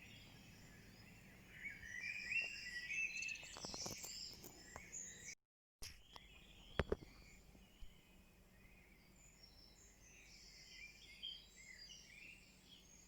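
Several songbirds singing over one another in the early-morning dawn chorus, busiest in the first few seconds. Near the middle the sound cuts out for a moment, followed by two sharp clicks, the loudest sounds here.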